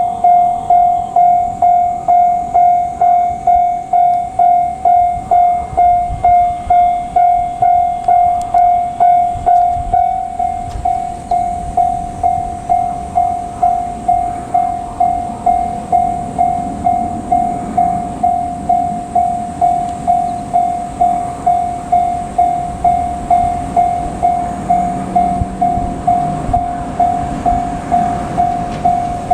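Level-crossing warning bell ringing in an even, repeating ding, about one and a half strokes a second. From about ten seconds in, JR Kyushu 817 series electric trains pass the crossing, their running rumble rising under the bell.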